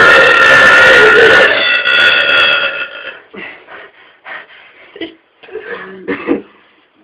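A man's very loud, long, drawn-out burp that tails off about three seconds in, followed by a few short, much quieter sounds.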